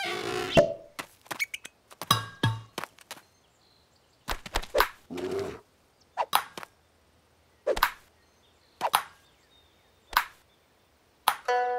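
Cartoon sound effects: a string of short knocks and thuds, spaced roughly a second apart in the second half, with a brief pitched sound about halfway through. A ringing musical chime starts near the end.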